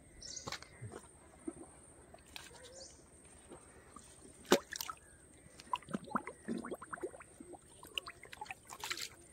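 Water dripping and splashing lightly from a wet drag net and its catch being handled, with scattered small taps and clicks, the sharpest about four and a half seconds in and a quick run of them a second or so later.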